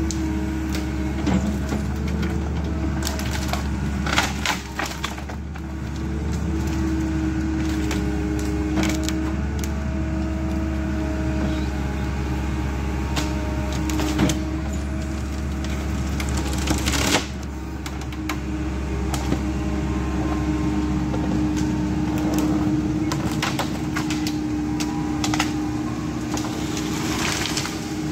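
Tracked excavator's diesel engine and hydraulics running steadily while its Westtech Woodcracker felling shear grips and cuts trees, with repeated sharp cracks and snaps of splitting wood and branches, one of the loudest a little past halfway.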